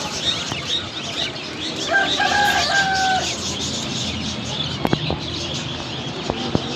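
A cage full of ducklings peeping constantly, many high chirps overlapping. About two seconds in, a lower, steady call lasting a bit over a second rises above them, and a couple of sharp knocks come near the end.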